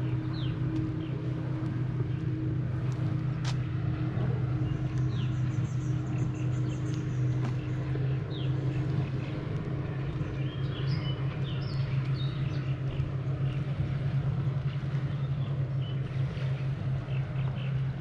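A steady low engine hum runs throughout, with birds chirping over it.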